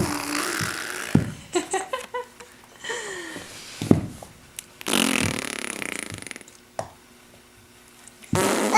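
Playful sputtering, raspberry-like noises and short snorts, several in a row with breathy hissing between them.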